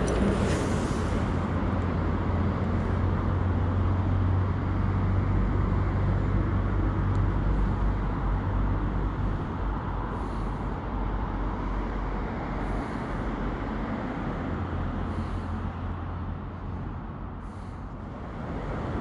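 Steady outdoor noise of wind buffeting the microphone over the flow of river water, with a deep rumble that eases slightly near the end. A few faint, short high chirps come every two to three seconds in the second half.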